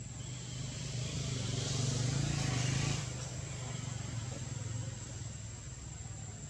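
A motor vehicle's engine running, swelling louder to a peak about two to three seconds in, then dropping back and carrying on more quietly.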